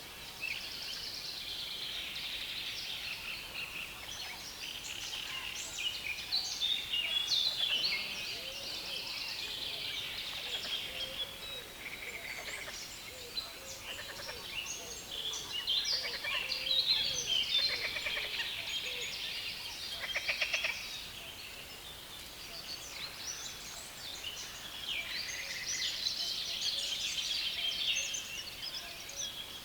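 Dense chorus of many small birds singing and chattering from a reed bed, with overlapping chirps and trills and a buzzy rattling call near the middle.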